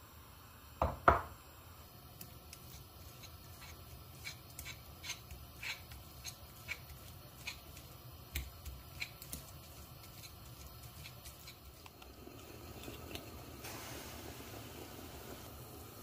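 Two sharp knocks about a second in, then a run of light clicks, about two a second, as metal forks strike a glass bowl while shredding boiled chicken. A soft steady hiss comes up near the end.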